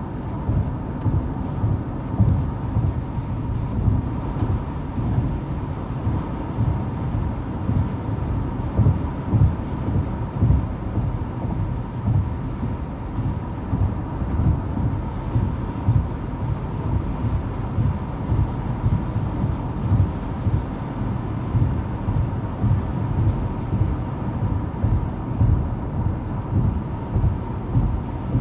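Steady low rumble of road and engine noise inside a car's cabin at highway speed, swelling and easing slightly every second or so.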